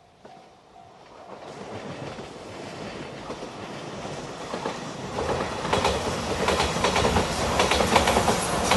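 Five-car JR Shikoku 8000 series electric limited express train approaching and passing over a level crossing. Its rush of noise builds steadily and turns loud about five seconds in, with rapid wheel clicks over the rail joints. A level-crossing bell rings faintly at the start.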